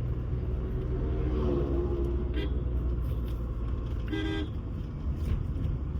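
Car driving on the road: a steady low road and engine rumble, with a short vehicle horn toot about four seconds in.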